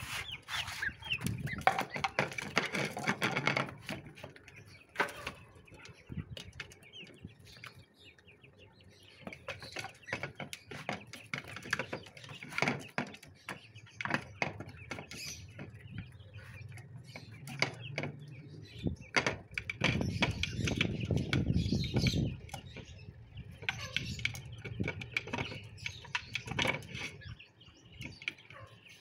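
Hens clucking and chirping, with wing flaps and a scatter of sharp taps as they peck rice from a plate. A louder stretch of rustling comes about two-thirds of the way through.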